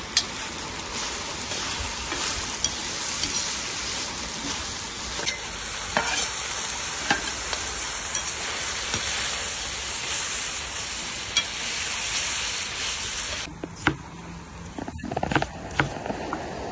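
Meat and vegetables sizzling as they fry in a kazan cauldron, with occasional clinks of a stirring ladle. About three-quarters of the way through the sizzle stops and a knife chops potatoes on a wooden cutting board, giving a few sharp knocks.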